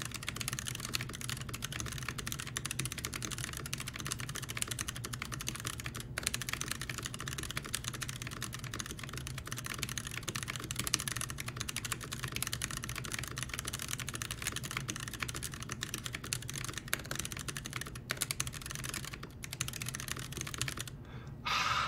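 Fast, continuous typing on a custom mechanical keyboard with stock tactile Kailh Box Brown switches on a brass plate in a polycarbonate case, with GMK keycaps. The typing breaks off briefly a couple of times and stops shortly before the end.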